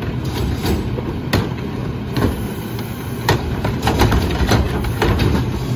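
Rear-loader garbage truck running steadily while its hydraulic cart tipper lifts a wheeled plastic trash cart and dumps it into the hopper. Sharp knocks and clanks of the cart and falling trash come several times over the engine hum.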